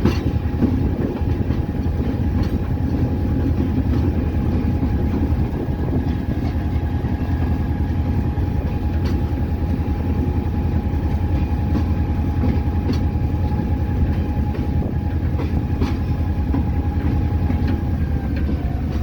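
Diesel locomotive heard from inside its cab, rolling slowly on dynamic braking: a steady low engine rumble with a thin steady whine that dips slightly in pitch near the end, and a few sharp clicks.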